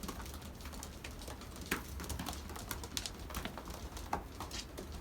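Young racing pigeons moving about in the loft: scattered light clicks and taps, over a steady low rumble of storm wind on the loft.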